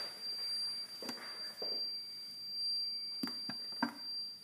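TTK FG-SYS leak detection panel's alarm buzzer sounding one steady high-pitched tone, signalling a liquid leak detected on sense cable 2. A few light knocks of handling sound over it.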